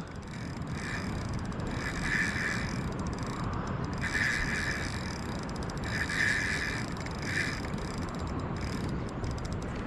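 A fishing reel sounds in about five short bursts of half a second or so while a hooked brown trout is being played on light 6 lb line, over a steady rush of river water.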